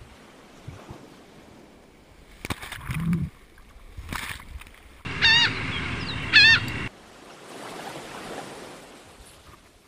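Surf breaking over a camera held at water level: sharp splashes and knocks of whitewater on the lens, then a churning rush. About five seconds in, two short pitched calls about a second apart sound over a louder, muffled wash.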